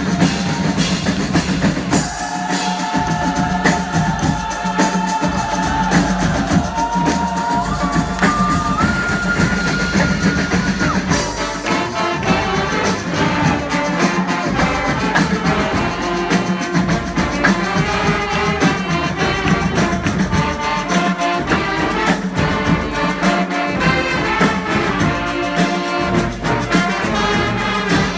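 Live brass band with drums playing. A held horn note climbs in steps over the first ten seconds or so, then the horns break into a busier tune over steady drumming.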